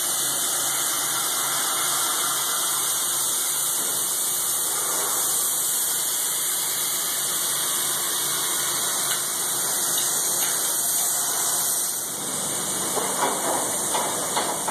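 Hot water running at low pressure and high volume through a large radiator's coils, a steady hissing rush with dirty wash water pouring out.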